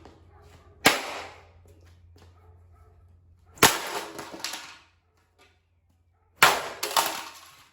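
Parts of a ceiling fan being smashed: three sharp blows about three seconds apart, each followed by a few smaller knocks as pieces clatter and settle.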